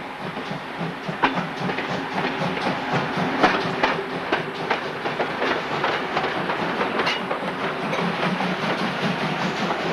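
Train running on track, its wheels clicking over rail joints with an irregular clickety-clack over a steady rumble, getting louder over the first second or so.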